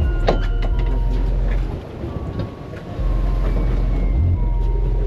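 Wind buffeting an action camera's microphone at sea: a heavy low rumble in gusts that cut in and out sharply, dropping away for about a second in the middle, with a few faint clicks and short thin whines.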